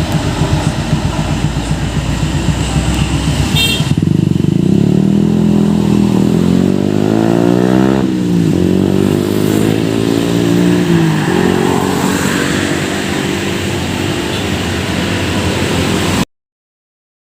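Hino RN285 tour bus engine pulling away: a rough, rhythmic clatter for about four seconds, then a pitched engine note that rises and falls, dipping sharply and climbing again about eight seconds in as it shifts gear. The sound cuts off abruptly about a second before the end.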